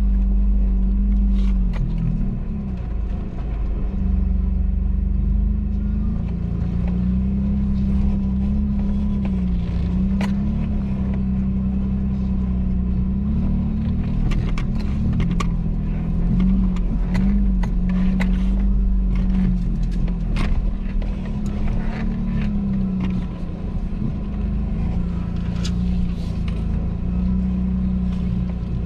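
Off-road vehicle's engine running, its pitch rising and falling in steps with the throttle over a low rumble. Scattered short clicks and knocks sound throughout.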